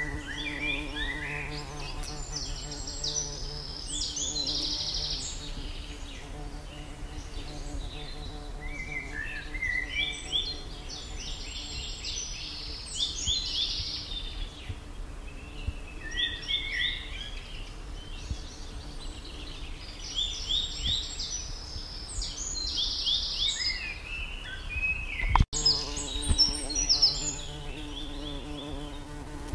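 A songbird singing phrases of quick chirps and trills every few seconds over a steady buzzing hum. The sound drops out briefly about 25 seconds in, then the song picks up again.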